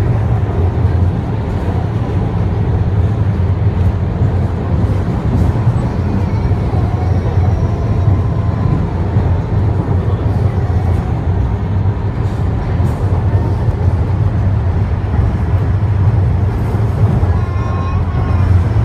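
Wuppertal Schwebebahn suspension railway car running along its overhead rail, heard from inside the car: a steady low rumble.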